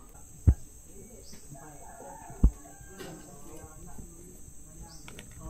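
Two dull thumps about two seconds apart as pieces of wood are laid on a charcoal grill being lit, over faint bird calls and insect noise.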